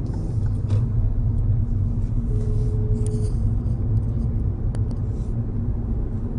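Steady low road and engine rumble of a car driving at speed, heard inside the cabin. A thin steady tone sounds for about a second, starting about two seconds in, and there are a few light clicks.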